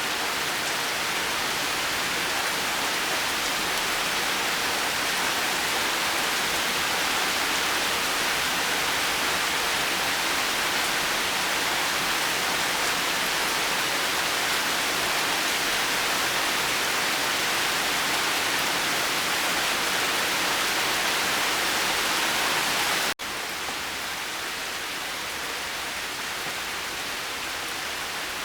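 Steady rain falling, an even hiss with no separate drops standing out. About 23 seconds in it cuts out for an instant and resumes a little quieter, a splice between rain recordings.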